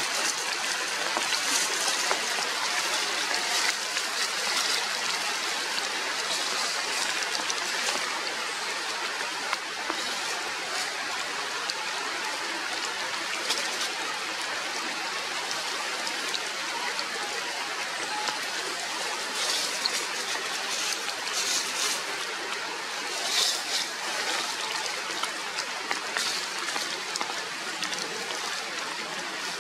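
Steady rain falling through forest leaves: an even hiss with scattered sharper drips, a few clusters of them about twenty seconds in.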